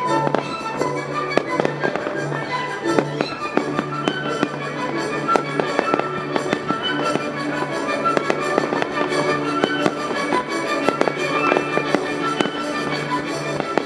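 Fireworks going off, with many bangs and crackles following one another several times a second. Music plays along with them throughout.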